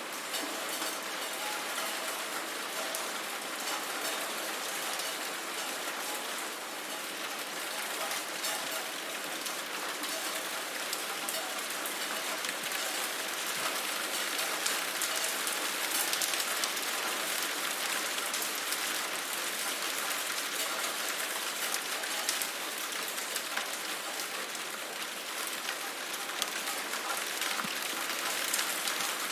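Steady rain falling, an even hiss dotted with many small drop ticks, growing slightly heavier in the second half.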